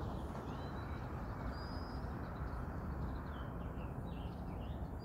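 Small birds give a series of short, high whistled chirps, some falling in pitch, over a steady low outdoor rumble.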